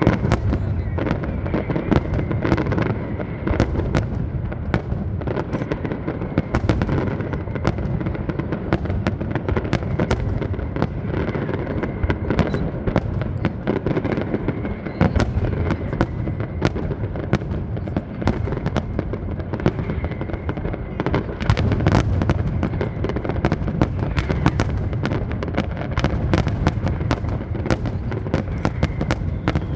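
Aerial fireworks display going off in a rapid, continuous barrage of sharp bangs and crackles over a deep rumble, with no let-up.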